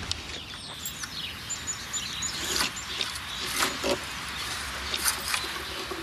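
A kea handling a wooden-stick and plastic-tube puzzle: scattered knocks and clicks as its beak works the tube and wood, over an outdoor background with small birds giving short high chirps near the start.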